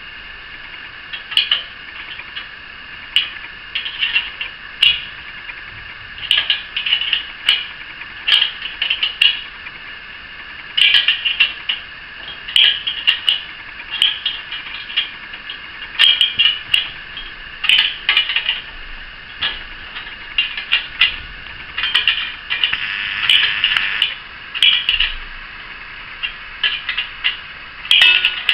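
Crescent wrench clinking on a 7/16 nut and bolt as the nut is tightened: irregular little bursts of metallic clicks and clinks every second or so.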